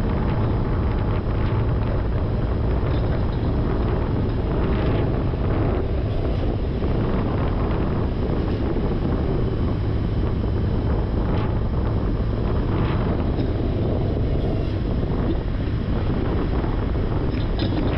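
Heavy truck engine running steadily at a low rumble, with wind buffeting the microphone.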